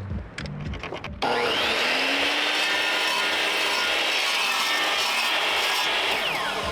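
Electric saw spinning up about a second in and cutting through a wooden siding board for about five seconds, then winding down near the end. A few light clicks come before it starts.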